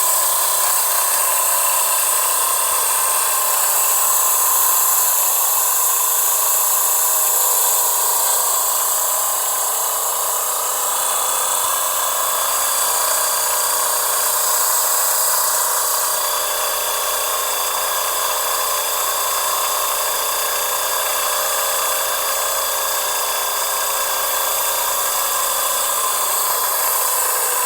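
Electric lint remover's small motor and spinning blades running steadily with a high-pitched whine.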